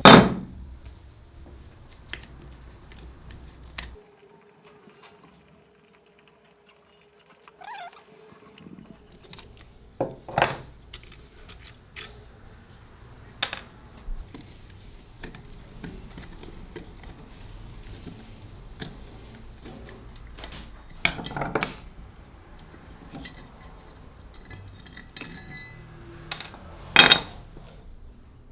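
Metal parts of an old rusty clothes iron clinking and knocking as it is taken apart: scattered sharp clinks, the loudest near the end.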